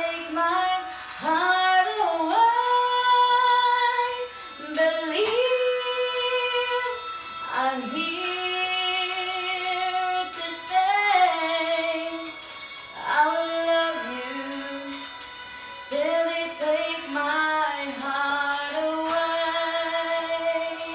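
A high female voice singing a slow ballad without clear words: long held notes with vibrato, joined by sliding melodic runs, with short breaks for breath.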